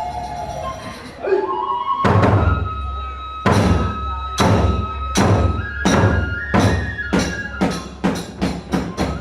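Kagura hayashi: a bamboo transverse flute (fue) holds long notes while the drum and small hand cymbals (tebyōshi) strike in a steadily accelerating series, starting about two seconds in.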